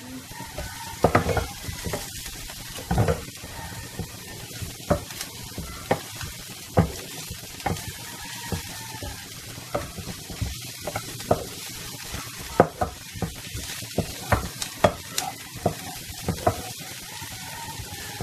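Chopped vegetables sizzling in a nonstick frying pan while a wooden spatula stirs them. The spatula makes irregular taps and scrapes against the pan over a steady frying hiss.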